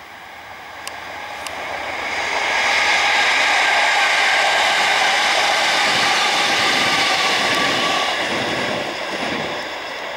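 Electric multiple-unit passenger train passing, its wheels on the rails making a steady rushing noise that builds over the first couple of seconds, stays loud for about five seconds, then fades as it goes away.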